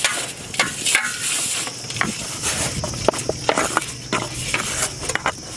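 Hands kneading and squeezing damp bran-and-flour fish bait in a steel bowl, making irregular crunchy crackles and rustling scrapes.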